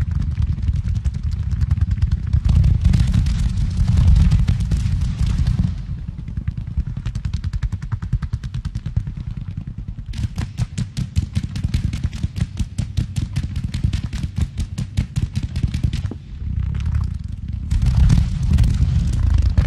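Fireworks firing and bursting from right beneath the listener: dense strings of sharp pops and bangs over a continuous low rumble. About halfway through comes a fast, even run of cracks, several a second, and heavier bursts build again near the end.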